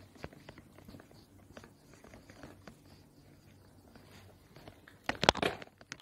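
A handheld whiteboard eraser rubbing across a whiteboard in short scrubbing strokes with light taps, then a short burst of louder knocks and handling noise about five seconds in.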